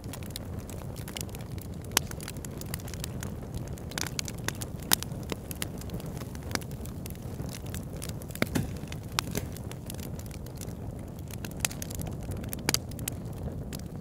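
Log fire crackling in a fireplace: a steady low rumble of flames with frequent sharp pops and snaps, the loudest about 2 and 5 seconds in.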